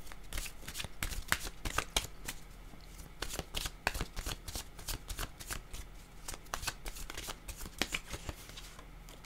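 A deck of oracle cards shuffled by hand, the cards flicking and slapping against each other in many quick, irregular clicks.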